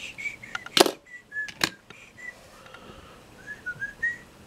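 Two sharp clicks, about a second in and again half a second later, from a 1/64 scale diecast toy car being handled and set down on a plastic display disc. Short, faint whistle-like notes come and go between them.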